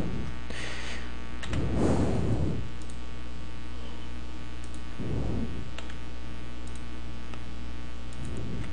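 Steady low electrical hum from the recording setup, with a few faint clicks of the computer keyboard and mouse. Two soft, low rushes of noise come about two seconds in and about five seconds in.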